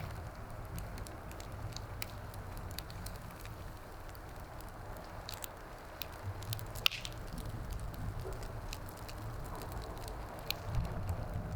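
Wood fire crackling, with scattered small snaps and one sharper pop about seven seconds in, over a steady low rumble.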